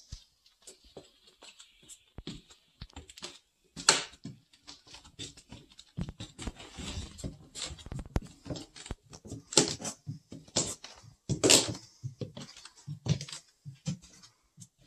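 Handling and scuffling noise close to the microphone: irregular knocks, taps and fabric rustling as the camera is carried and brushed against clothing. There are a few louder thumps about four seconds in and again around ten to twelve seconds in.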